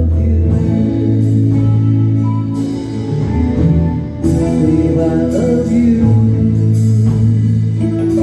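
A live band playing a pop ballad on electric guitars, bass guitar, drums and keyboards, with singing over it.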